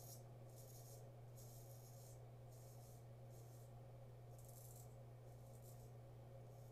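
A 7/8-inch straight razor scraping stubble from a lathered scalp: faint, short rasping strokes, about one a second, over a steady low hum.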